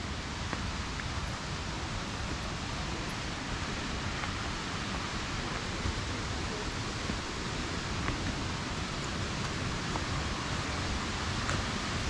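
Steady rush of a waterfall: an even noise from low to high pitches that never breaks.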